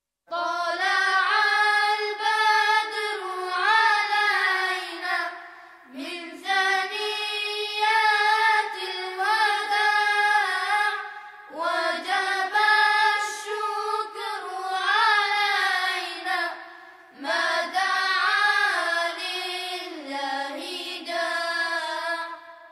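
A single high voice singing without accompaniment, in long phrases of wavering, ornamented pitch with short breaks for breath between them.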